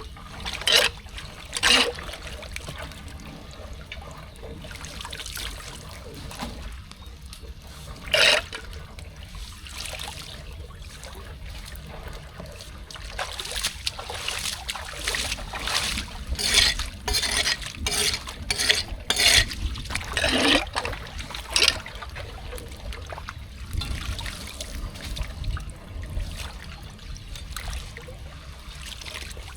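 Floodwater trickling and flowing into a clogged street storm drain, with sharp splashes now and then: one about a second in, another near 8 s, and a quick run of them in the middle of the second half.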